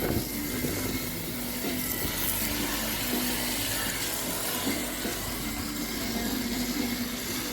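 Pressurised water spraying steadily from a hose, rinsing packed lint out of a dryer's blower and duct parts.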